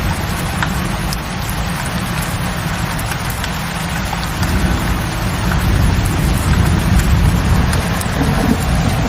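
Steady rainfall, with scattered individual drops ticking over a dense hiss and a deep low rumble underneath. It grows a little louder about halfway through.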